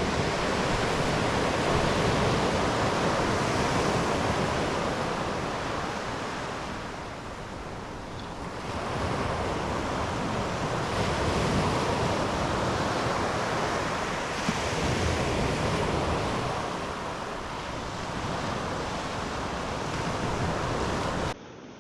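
Ocean surf breaking on a beach, swelling and easing every few seconds, with wind buffeting the microphone. Near the end it drops suddenly to a quieter, duller stretch.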